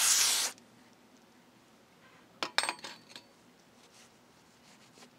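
Paper shop towel rubbing over a small brake pad, a brief loud swish at the start as it wipes off grease. About two and a half seconds in, a few light metallic clinks with a short ring.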